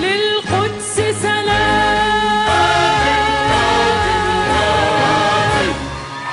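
Arabic song performed live: a female solo voice and a mixed choir sing long held notes over an orchestra with a strong bass line. The music drops away just before the end.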